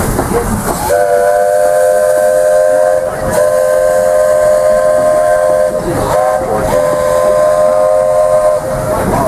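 Walt Disney World Railroad steam locomotive's whistle sounding a chord of several notes in three long blasts: the second follows the first almost at once, and the third comes after a short pause.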